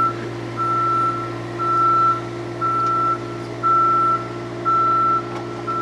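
Aerial lift's motion alarm beeping about once a second, a single steady high tone, over the steady hum of the lift's engine as the platform rises.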